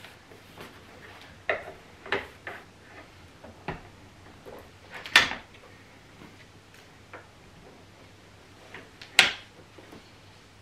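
Hard plastic clicks and knocks from a Cybex Cloud Z i-Size infant car seat being handled and fitted onto the car-seat adapters of an Egg2 pushchair chassis. Scattered sharp clicks, the two loudest about five and nine seconds in.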